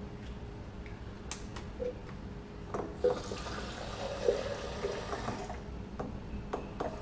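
Kitchen sink tap turned on and running for about two and a half seconds, starting about three seconds in, with a few short knocks and clicks of handling before and after it.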